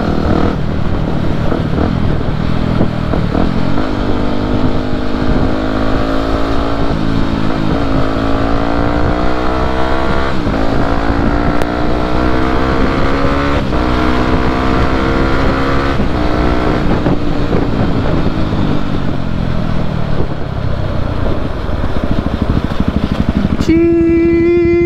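Yamaha WR250 supermoto's single-cylinder engine accelerating through several gears, its pitch climbing and dropping back at each shift, then falling away as the bike slows, with wind rush over the microphone. Near the end a steady, high, horn-like tone cuts in sharply for about a second.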